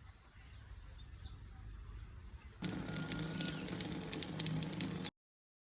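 Quiet outdoor background with a few faint high bird chirps about a second in. About halfway through, a louder rushing noise with a low steady hum starts suddenly, then everything cuts off abruptly shortly before the end.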